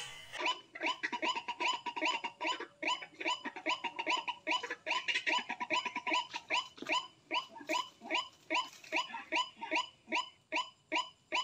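White-breasted waterhen calling: a fast, regular series of harsh 'kruak' notes, about three to four a second.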